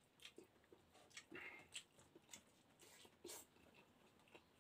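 Faint chewing and lip smacking from a person eating: soft, short wet clicks and smacks, about two a second.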